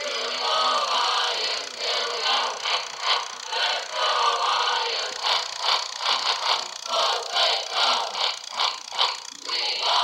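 Gemmy animated Nittany Lion plush playing a tinny song through its small built-in speaker after its button is pressed, with the whir and rattle of its motor as it moves its head.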